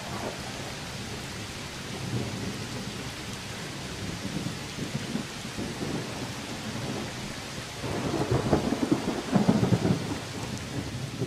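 Steady rain falling, with a rumble of thunder that swells about eight seconds in and is loudest near the end.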